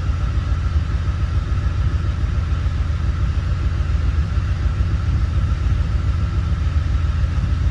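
Honda car engine idling steadily with an even, rapid low pulse and a faint steady high whine. It is running after the reversed wires on an ignition coil were corrected in a misfire repair, and the mechanic hears it sounding better.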